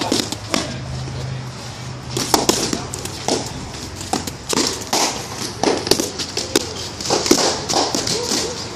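Escrima sticks clacking together in a string of sharp, irregular strikes, with crowd voices and shouts underneath.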